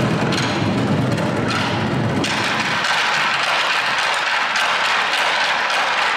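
Modumbuk, a Korean ensemble of many drums played together by a large group, in a loud, dense roll. About two seconds in the deep drum sound drops away and a brighter, higher rattle carries on.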